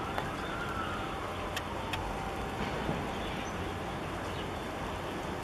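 Steady outdoor background rumble and hiss, with a few faint clicks and a faint rising-then-falling whistle in the first second.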